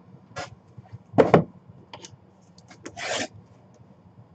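Small cardboard boxes being handled and slid open: short scrapes and rubs of cardboard, the loudest about a second in, and a longer rub about three seconds in.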